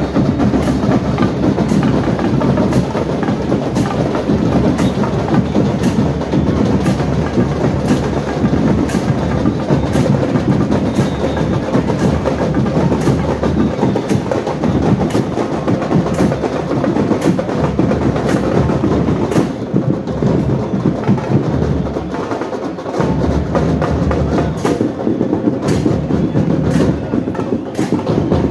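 A parade band's drums and percussion playing a loud, steady beat, with sharp high strikes about twice a second over continuous drumming.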